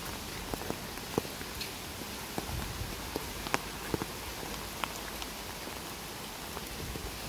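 Steady rain: a constant hiss with scattered sharp taps of single drops landing close by.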